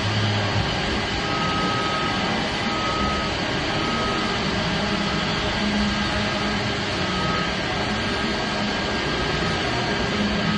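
Argon-shielded welding arc giving a steady, even hiss and buzz, with a few short faint tones on top.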